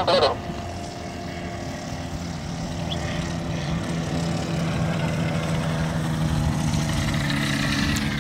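Small ultralight aircraft's engine and propeller running with a steady drone that grows gradually louder over the first several seconds.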